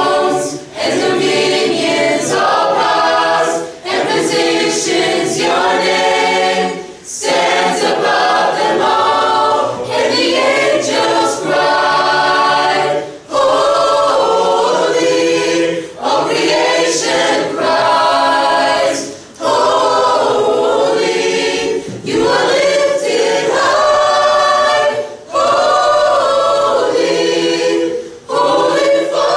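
Mixed-voice high school choir singing in phrases of about two to three seconds, with brief breaks for breath between them.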